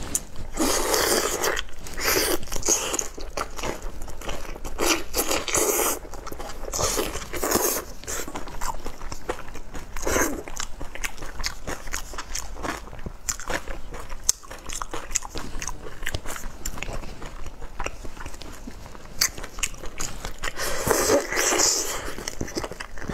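Close-miked eating of soy-marinated whole prawns: shells cracking and peeling under gloved fingers, with wet biting and chewing of the meat, in a quick, irregular run of clicks and crunches.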